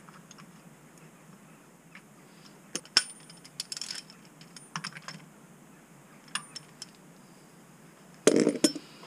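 Metal tools and clutch parts clinking and clicking as they are handled and fitted, in scattered sharp taps, with a louder clatter near the end.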